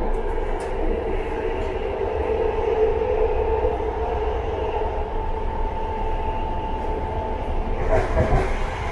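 Interior of a BART train car running: a steady low rumble with a steady whine over it, and a short louder rattle about eight seconds in.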